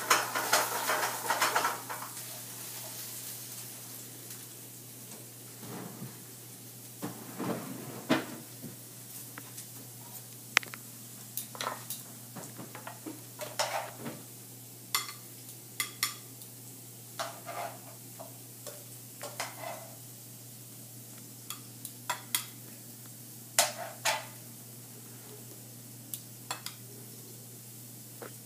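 A metal utensil scraping and clinking against a pan and plate as sautéed potatoes are served out: a busy scrape in the first couple of seconds, then many short separate clinks. Beneath them are a faint sizzle from food still cooking and a steady low hum.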